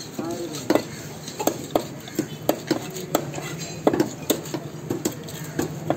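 Long knife cutting a whole tuna into steaks on a chopping block: a steady run of sharp chops, about two to three a second, each with a slight clack as the blade hits the block.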